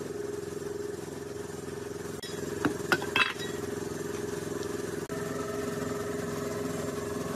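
A couple of sharp metal clinks about three seconds in as the valve cover is pulled off a motorcycle engine's cylinder head, over a steady machine hum.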